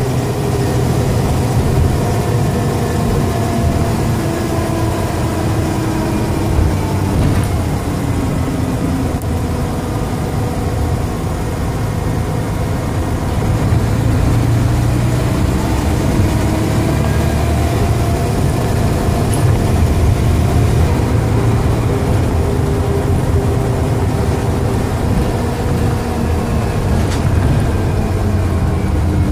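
Dennis Trident double-decker bus diesel engine with Voith automatic gearbox running under way, loud, its engine note rising and falling several times as it pulls away and eases off. The uploader takes the noise for a bad turbo.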